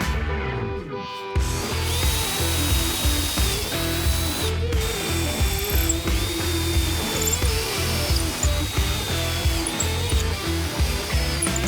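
Power drill whining as it bores the 1/4-inch caning holes around a wooden canoe-seat frame, its pitch dipping and recovering every couple of seconds as the bit bites, over background guitar music.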